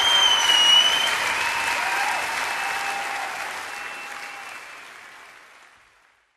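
Concert audience applauding and cheering, with one long whistle over it in the first second; the applause fades out steadily.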